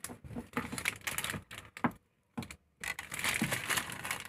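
Quick irregular clicks and rustling from wiring, plastic connectors and a cylindrical motor capacitor being handled, with a short break of near silence about two seconds in.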